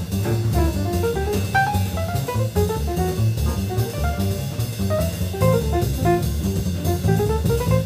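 Fast bebop small-group jazz from a 1953 recording: quick runs of short, clean horn notes over a walking double bass and a drum kit.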